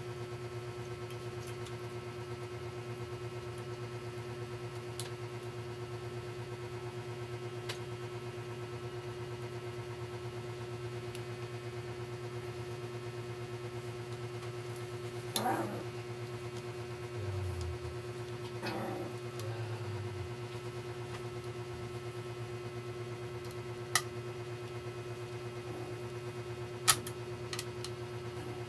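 Steady low electrical hum, with a few scattered sharp clicks and a couple of dull knocks from laptop parts being handled during reassembly.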